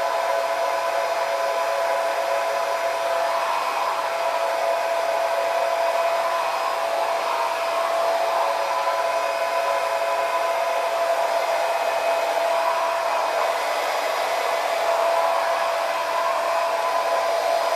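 Blow dryer with a diffuser attachment running steadily on a medium setting: a constant rush of air with a steady motor whine.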